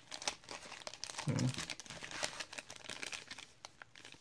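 Plastic wrappers of trading-card packs crinkling and crackling as the packs are handled and shuffled together, with a brief low voice sound about a second and a half in.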